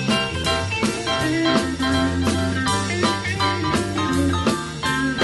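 Live rock-and-roll band playing an instrumental section with no vocals: electric guitar over bass guitar, keyboard and a drum kit keeping a steady beat.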